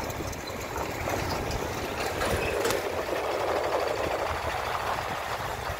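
A vehicle's engine running steadily as it drives along the street, with a constant rush of travel noise.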